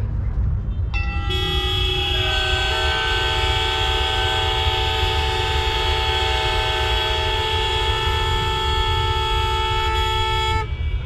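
Many motorcycle horns held down at once, making a sustained discordant chord: a few start about a second in, more join over the next couple of seconds, and they all cut off together near the end, over a steady low rumble.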